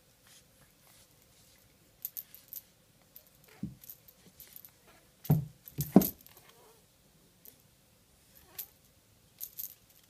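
A cat playing with a plastic toy fish on a string on a hard floor: scattered light clicks and rattles of the toy, with a few dull thumps about halfway through.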